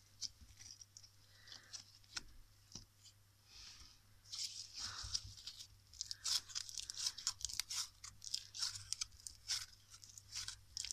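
Crunchy foam-bead slime being squeezed, stretched and kneaded by hand, its beads crackling and popping. The crackles are sparse and faint at first, then come thick and fast from about four seconds in.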